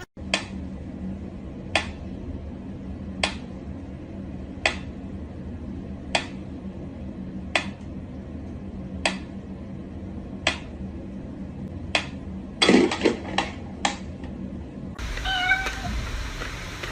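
A cat meowing, with short calls in the last few seconds, after a run of sharp clicks evenly spaced about a second and a half apart over a steady low hum.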